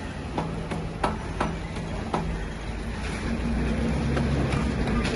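Diesel generator being hand-cranked to start: irregular sharp metallic knocks over a steady low engine drone, which grows louder about three seconds in.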